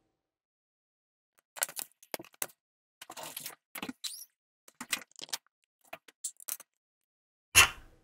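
Instant scratch-off lottery ticket being handled and scratched: scattered short crackles and clicks at first, then loud, repeated scraping strokes near the end.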